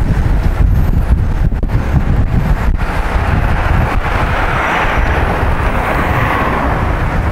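Wind buffeting the microphone of a bike-mounted camera while riding, a heavy steady rumble. A broader hiss swells from about halfway through and eases near the end.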